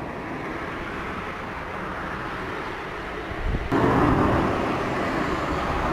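Outdoor recording of a reported 'trumpet sound in the sky': a steady, low, rumbling noise that grows suddenly louder and fuller a little under four seconds in.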